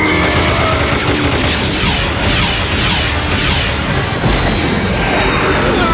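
Cartoon battle sound effects, blasts and explosions, over background music.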